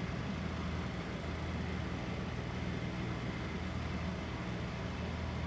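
A steady low rumbling hum that swells and eases unevenly every second or so, taken for a soft-shelled turtle snoring.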